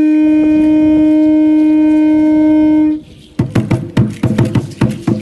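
A conch shell trumpet blown in one long, steady note that cuts off about three seconds in. Half a second later a drum starts a quick, steady beat, about four strikes a second, with rattles sounding along with it.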